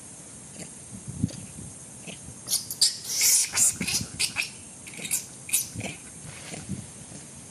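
A quick series of short, very high-pitched animal squeaks and chirps, loudest about three seconds in and dying out after about six seconds.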